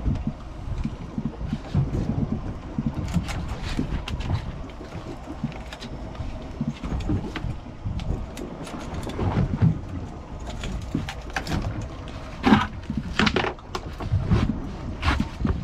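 Wind buffeting the microphone with a gusty low rumble, broken by scattered knocks and clicks. The loudest clatter comes about twelve and a half seconds in.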